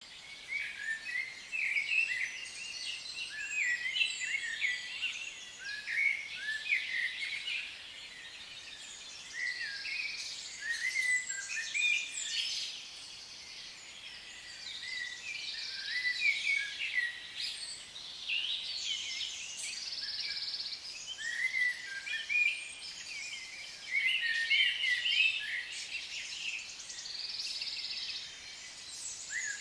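Several birds singing at once: a continuous tangle of quick chirps and short trills that swells and fades every few seconds.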